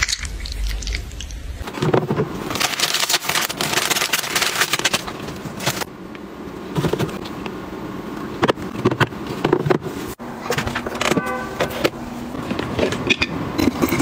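Household items being handled and set down: rustling with many scattered clicks and knocks.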